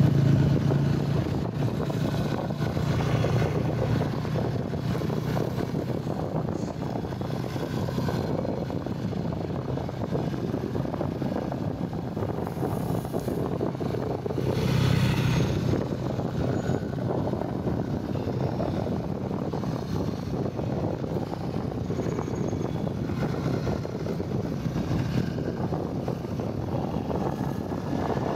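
Commuter motorcycle engine running steadily under way, heard from the rider's seat with road and air noise over it. It gets louder for a moment about halfway through.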